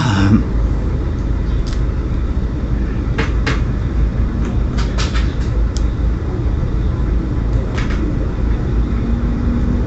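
Handheld phone camera being moved and repositioned: a steady low rubbing rumble on the microphone, with a few light knocks and clicks scattered through.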